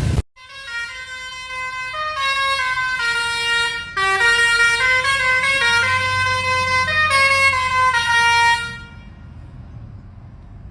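Telolet basuri bus horn playing a tune of changing pitched notes for about eight seconds, then stopping, leaving only a faint low rumble.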